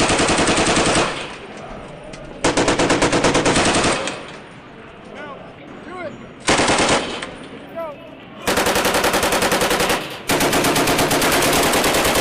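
An automatic weapon firing long bursts, five in all: one already under way at the start, a longer one about two and a half seconds in, a short one near the middle, and two long ones back to back near the end. Each burst is a rapid string of shots.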